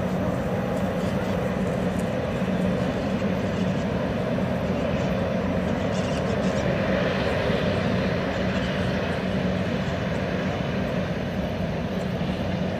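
Jet engines of an Emirates Airbus A380 running at taxi idle: a steady rumble with a constant low hum.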